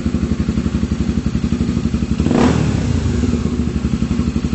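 Honda XRE 300's fuel-injected single-cylinder engine idling through an aftermarket Roncar TRS trioval exhaust, with an even, deep exhaust pulse. A little over two seconds in, a short throttle blip lifts the revs before the engine settles back to idle.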